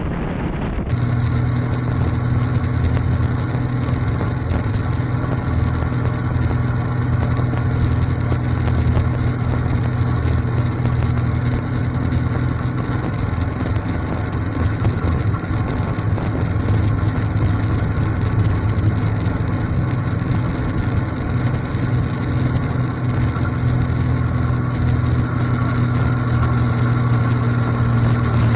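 Tractor engine running steadily under load while pulling a loaded forage wagon, a constant drone, with wind on the microphone.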